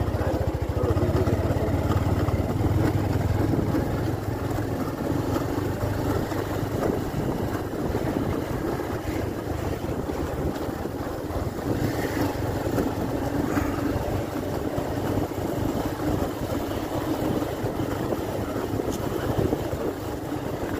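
Motorcycle engine running steadily while riding along a dirt path, with wind buffeting the microphone.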